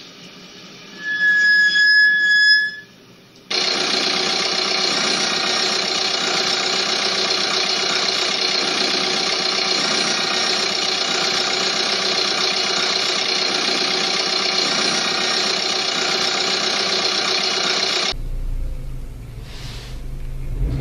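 Noises from faulty car parts: a short high squeal about a second in, then a long steady mechanical whine with a dense rumble under it. Near the end this cuts abruptly to a lower, rougher engine-like running sound.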